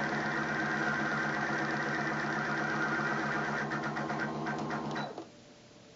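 Baby Lock Allure Plus computerized sewing machine running steadily on its bobbin winder as it fills a nearly full bobbin, with a few ticks before the motor stops suddenly about five seconds in.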